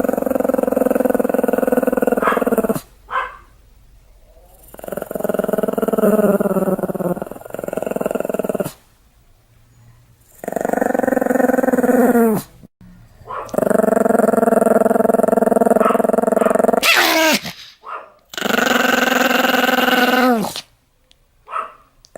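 Pomeranian growling angrily in a string of long growls, each two to three seconds, with short breaks between them; several tail off with a drop in pitch.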